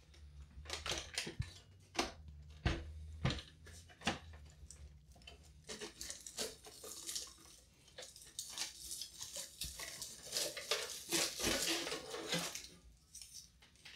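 Handling noise as a CD-ROM drive is worked loose from a Macintosh SE's chassis and front bezel: scattered clicks and knocks of metal and plastic, then, about ten seconds in, a longer stretch of scraping and rustling as the tape-covered drive slides out.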